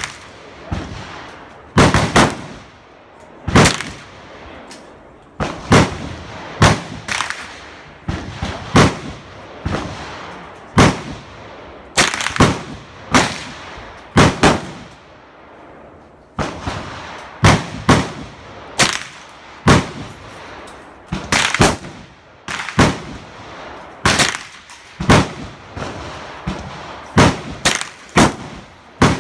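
Gunshots at a shooting range: about thirty single shots at irregular intervals, roughly one a second, some in quick pairs, varying in loudness, each with a short ring-out.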